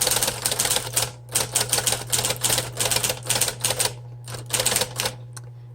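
1958 Smith Corona Electric portable typewriter being typed on in quick runs of keystrokes, the type bars clacking against the platen over the steady hum of its running electric motor. The keystrokes stop near the end while the motor hum continues.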